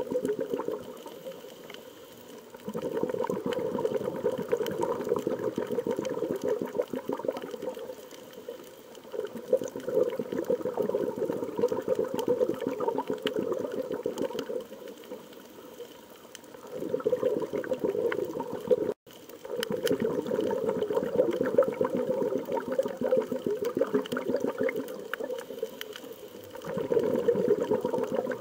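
Underwater bubbling from a scuba diver's exhaled breath, coming in long swells every several seconds with quieter lulls between. The sound drops out completely for an instant about two-thirds of the way through.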